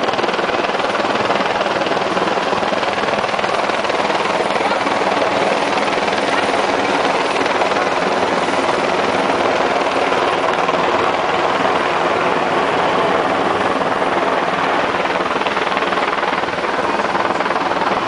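Helicopter flying low overhead, its rotor and engine a loud, steady drone.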